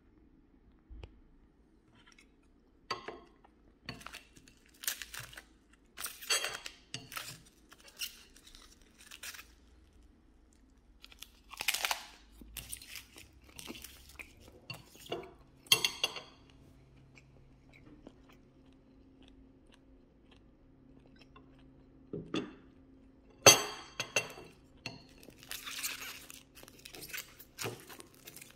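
Biting and chewing an onigiri rice ball wrapped in crisp nori seaweed: separate crunches at irregular intervals, a few of them louder.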